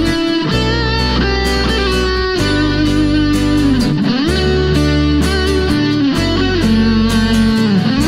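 Live band instrumental passage: electric guitar, acoustic guitar and electric bass playing together, with steady bass notes under a melody line that slides between notes.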